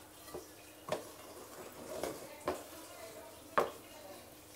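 A few sharp, light knocks of a frying pan and utensils being handled on the stove, about a second apart.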